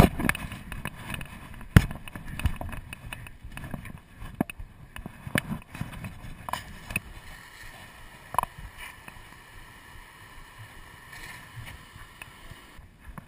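A firefighter handling a fire hose and nozzle up close while moving over dry ground: irregular knocks, scuffs and rustling from hose, gloves, turnout gear and footsteps, busiest in the first half and quieter later.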